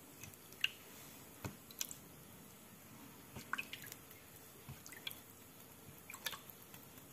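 Faint, scattered drips and small splashes of water as slices of white bread are dipped in a plate of water and squeezed out by hand.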